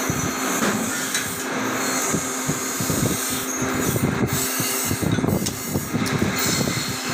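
Electric blower motor of a coal forge running with a steady hum and rush of air. Irregular scraping and rubbing of tongs and a steel hoe blank in the coals.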